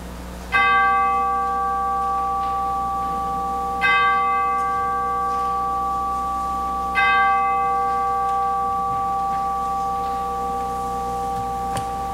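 A bell struck three times, about three seconds apart, each strike at the same pitch and ringing on over the last, marking the start of worship.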